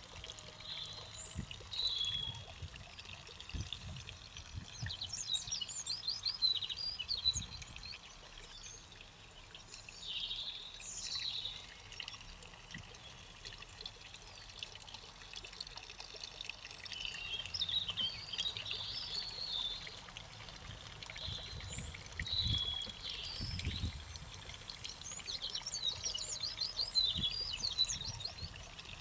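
Garden birds singing, with short chirping and trilling phrases overlapping and repeating throughout, over a faint steady hiss and occasional low rumbles.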